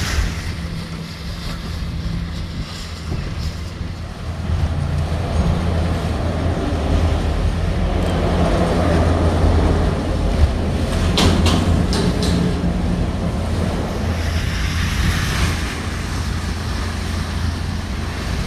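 Boat engine running steadily under way, with wind buffeting the microphone and water rushing past the hull. A few short clicks come about eleven seconds in.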